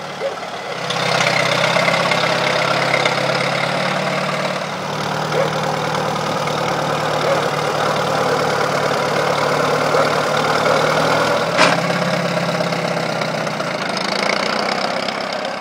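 1953 Allis-Chalmers Model B tractor's four-cylinder engine running steadily, louder from about a second in. One sharp click near the end.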